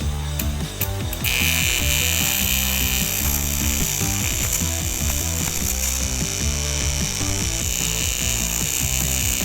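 Background music with a steady beat of low notes, joined about a second in by a steady high-pitched hiss that carries on until the end.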